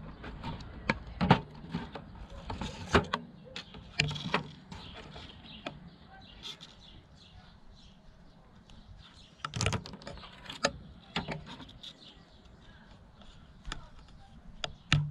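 Irregular taps and knocks of objects being picked up and set down on a tabletop, with light plastic clicking and rubbing as clear plastic tubing is handled and pushed onto the outlet of a small plastic mini water pump.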